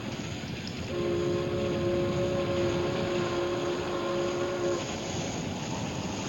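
A ship's horn sounds one long, steady blast made of several tones at once, starting about a second in and stopping near the two-thirds mark, the fog signal of a liner in dense fog. Under it runs a steady rushing noise.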